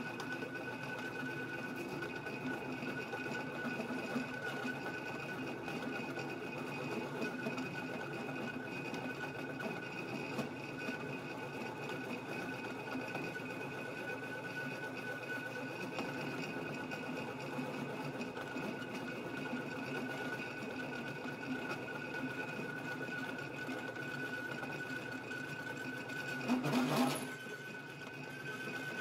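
Drill press running a boring head with a carbide-tipped boring bar, cutting a metal hinge bore with a steady whine and a little chatter, from flex in the drill press table and quill. A short louder burst comes near the end.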